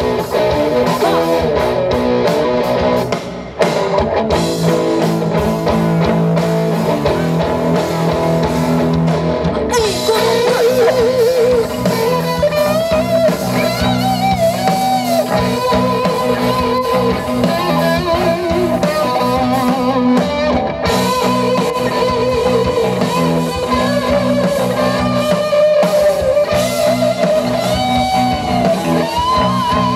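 Young rock band playing live on an amplified stage: electric guitar, bass guitar and drum kit, with a lead line that bends and wavers in pitch.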